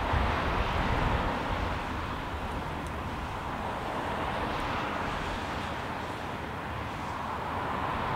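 Steady, even rush of vehicle noise, with no horn or other distinct tone.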